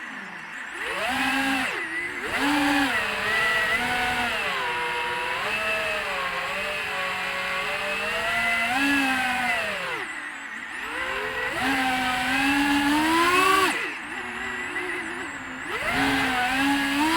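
FPV freestyle quadcopter's brushless motors whining, the pitch rising and falling with the throttle. It drops away briefly about a second in, around ten seconds and around fourteen seconds, then rises again with each punch of throttle.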